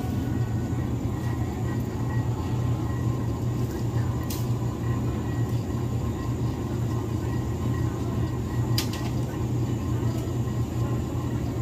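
Steady low hum and rumble of supermarket background noise along the refrigerated dairy shelves, with two faint clicks about four and nine seconds in.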